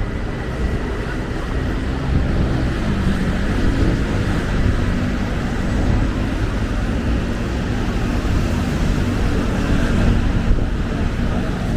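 Steady city road traffic: engines running and tyre noise from passing vehicles.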